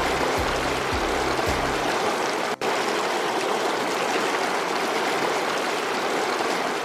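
Mountain stream rushing over rocks, a steady rush of water. A low pulsing bass tone of music runs under it for about the first two seconds, and the sound drops out for an instant about two and a half seconds in.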